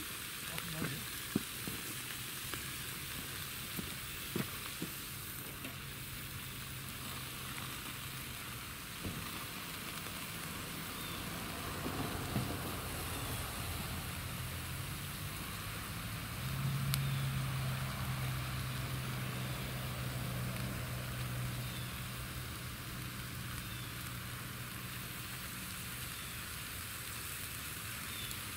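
Meat sizzling on a portable tabletop grill, a steady frying hiss, with a few light clicks in the first few seconds. A low motor hum swells a little past the middle and fades after several seconds.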